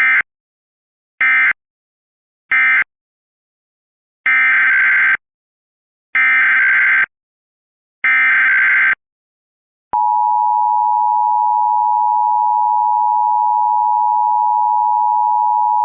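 Emergency Alert System data bursts and attention signal: three short warbling end-of-message data bursts, then three longer header bursts of about a second each, then about ten seconds in the steady, loud two-tone EAS attention signal, which starts suddenly.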